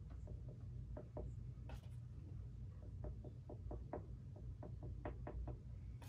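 Light tapping: a few scattered small knocks, then a quicker run of about a dozen in the second half, over a steady low hum.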